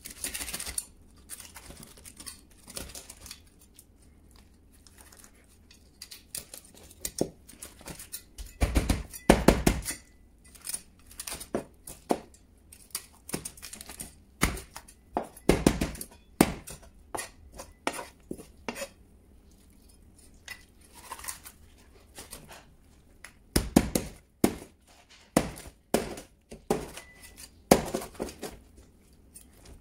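Kitchen knife cutting up a raw fish head on a cutting board: irregular knocks and clicks of the blade against the board and through the head, loudest in clusters about nine, sixteen, twenty-four and twenty-eight seconds in.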